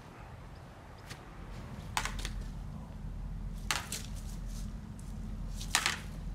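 Lightsaber blades clashing in a sparring exchange: three sharp clashes about two seconds apart, each with a short ring. A low steady hum comes in about a second and a half in and runs under them.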